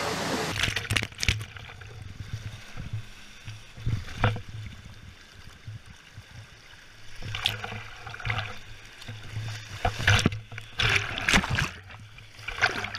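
Water sliding and splashing heard from a camera carried down a water slide: running water with scattered knocks and splashes, busiest near the end as the rider reaches the pool. The first half-second is the steady rush of a pool waterfall, which cuts off suddenly.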